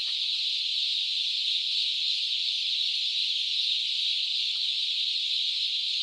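Massed peeping of thousands of young chicks, high-pitched and steady, merging into one continuous din.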